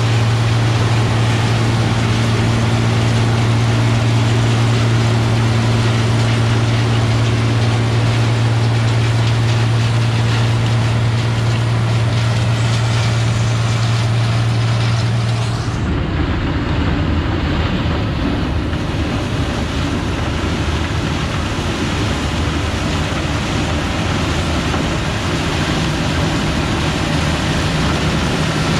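Steady running of engine-driven farm machinery, a constant hum. About halfway through it switches abruptly to a different, rougher machine sound.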